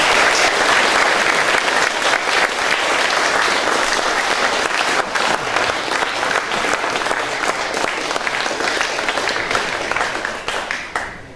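Audience applauding, a dense spread of many hands clapping, easing off near the end.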